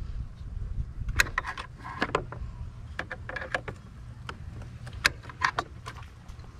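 Irregular clicks and knocks of a car's intake ducting and fittings being handled and worked by hand, over a steady low rumble.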